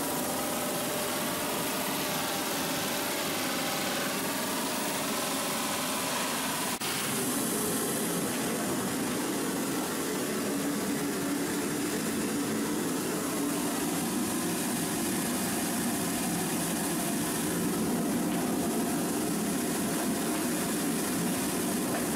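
Steady industrial machinery noise, engine-like and continuous. About seven seconds in it cuts abruptly to a rougher, slightly louder din.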